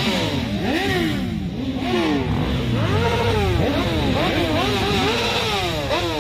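Several motorcycle engines revving over and over at once, their pitches rising and falling in overlapping sweeps.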